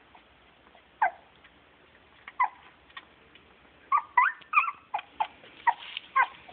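A puppy hiccuping: short squeaky hics that fall in pitch, a few spaced a second or more apart at first, then a quick run of them in the second half.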